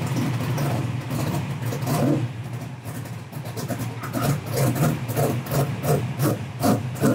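Carbureted engine of a 1965 Mustang drag car running at idle. From about four seconds in it pulses about three times a second.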